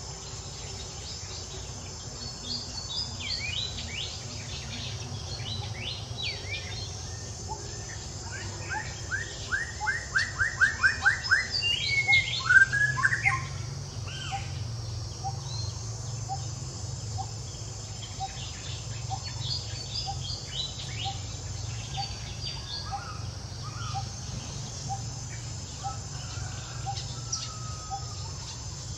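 Wild birds chirping and calling. Near the middle comes a rapid run of about a dozen chirps, the loudest sound, then a call that swoops downward. Through the second half a faint note repeats about once a second, over a steady low background hum.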